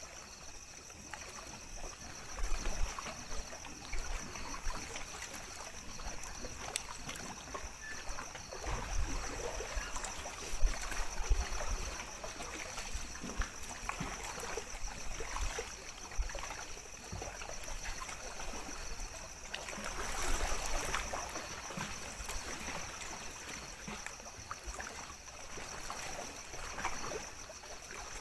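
Lake water lapping and splashing against the rocky shore, an irregular run of small slaps and trickles with a few low thumps.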